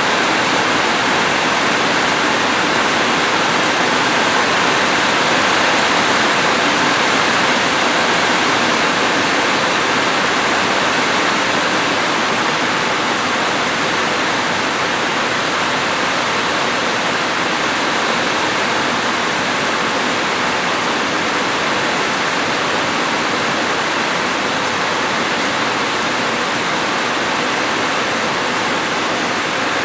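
Heavy rain falling as a steady, even rush of noise, without separate drops or changes standing out.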